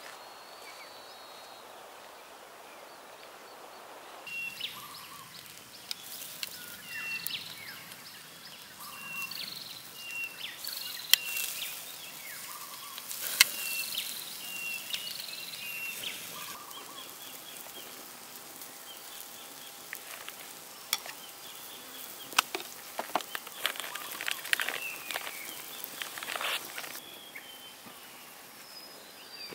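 Chicken pieces sizzling on a wire grill over an open fire, with sharp crackles and pops, starting about four seconds in. Birds chirp repeatedly in the background.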